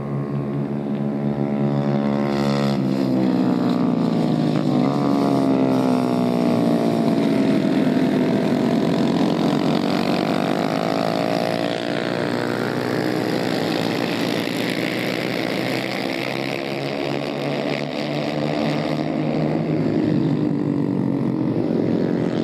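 Small single-cylinder engines of several 110 cc racing motorcycles running hard, their buzzing pitch rising and falling again and again as the bikes accelerate, shift and pass.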